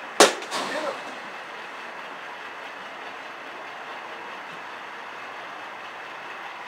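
A softball bat striking a pitched softball once, a sharp crack just after the start. A steady, even rush of background noise follows.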